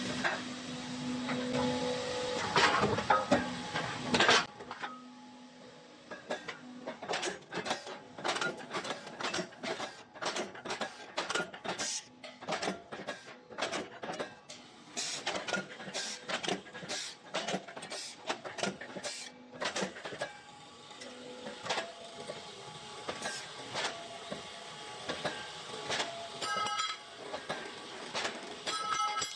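CNC angle steel punching line at work: a steady hum with a few loud knocks, then a long run of sharp metallic strikes, about two a second, thinning out in the last third.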